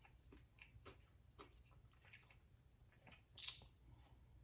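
Faint small clicks and mouth noises from eating at the table, scattered through a quiet pause, with one short hiss about three and a half seconds in.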